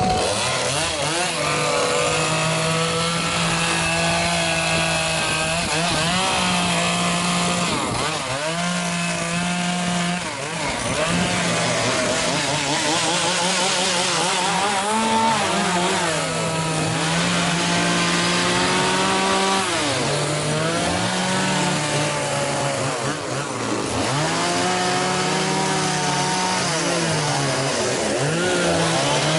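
Chainsaw engine running and cutting wood. Its pitch dips and climbs back several times as the throttle is eased and opened and the chain bites into the wood.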